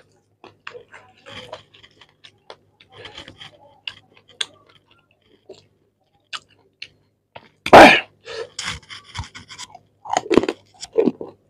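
Close-up sounds of a person eating rice and chicken curry by hand: soft chewing and wet mouth clicks, with a loud sudden mouth sound just under eight seconds in, then a quick run of chewing and smacking.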